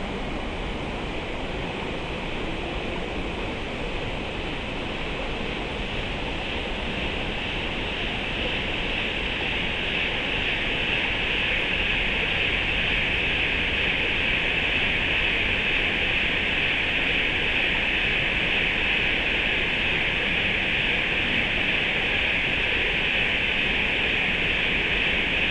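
Steady ambience by a creek: an even rushing hiss with no distinct events, growing somewhat louder about ten seconds in.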